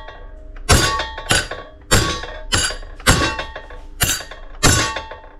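Steel hammer striking 5 mm carriage bolts, driving their square necks into drilled holes in a sheet-metal plate: about seven ringing metal-on-metal blows, roughly two a second, with one short pause midway.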